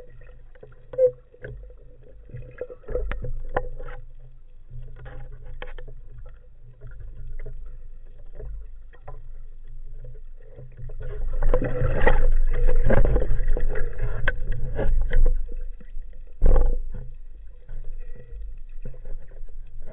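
Water noise picked up by a spearfisher's camera in the sea: a low rumble with scattered clicks and knocks, a louder, noisier stretch lasting a few seconds from a little past the middle, and one sharp knock shortly after it.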